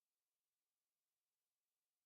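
Near silence: the audio track holds only a faint steady hiss, with no sound events.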